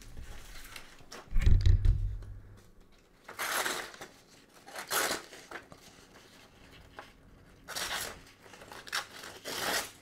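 Serrated blade of a Bibury multitool rasping through a sheet of paper in about five short ragged strokes, tearing its way through rather than slicing cleanly. A low thud of handling comes about a second and a half in and is the loudest sound.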